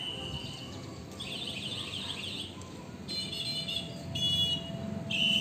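TWOOC T-002 USB-rechargeable electronic bicycle horn sounding from down the street through several of its tones: a steady high beep, then a rapid warbling trill about a second in, then two short honks, and the steady beep again near the end.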